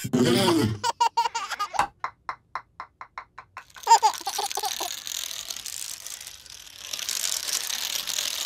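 Cartoon baby laughing in bursts, a long giggle of short, evenly spaced 'ha's that fade out, and another laugh about four seconds in. After that comes a steady rattling clatter that grows louder near the end.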